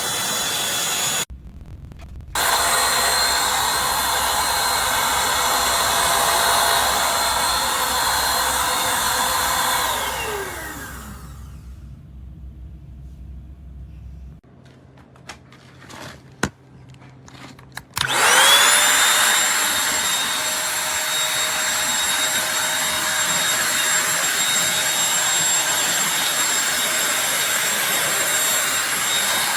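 Eureka Blaze 250-watt corded stick vacuum's motor running with a steady whine, with a brief gap of about a second near the start. About ten seconds in it is switched off and the whine falls away as the motor winds down; a few clicks follow. At about eighteen seconds it is switched back on, the whine rising as the motor spins up, and it then runs steadily.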